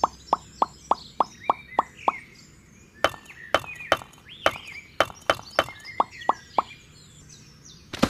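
A run of quick light taps, about three to four a second, breaking off briefly and starting again with a few sharper clicks, over birds chirping; one loud click right at the end.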